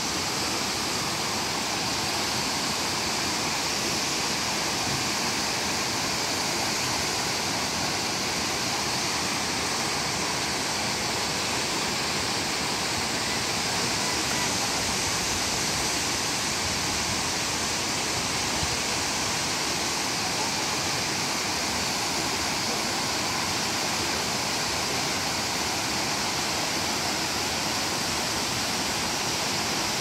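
Waterfall and the mountain creek below it rushing over mossy boulders: a steady, unbroken rush of water.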